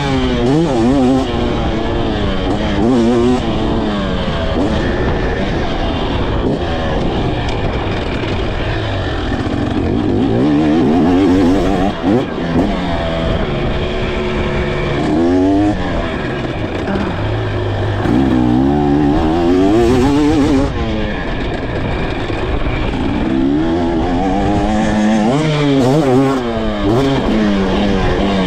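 KTM 300 SX two-stroke single-cylinder dirt bike engine under hard riding, its pitch rising again and again as it accelerates and dropping back between pulls.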